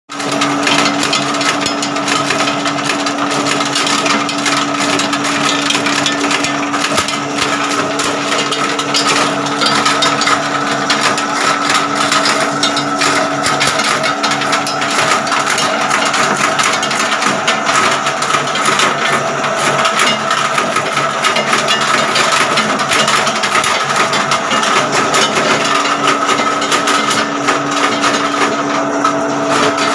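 Dry areca nut dehusking machine running: a steady mechanical hum under a dense, irregular rattle of nuts being worked inside it. A low part of the hum drops out for a while midway and returns near the end.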